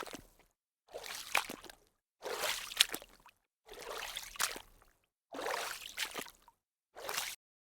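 Water splashing and sloshing in a string of short bursts, each about a second long and cut off abruptly, with sharp clicks mixed in.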